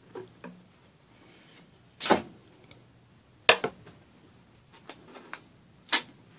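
A few sharp clicks and light knocks spread over several seconds, three of them louder than the rest: hands handling a clear acrylic hole template and picking at the freshly cut vinyl wrap on a cornhole board.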